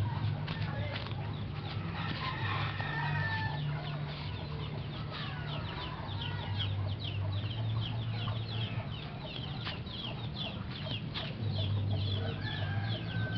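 Birds chirping: many quick, high, downward-sliding calls, thickest in the second half, over a low steady hum.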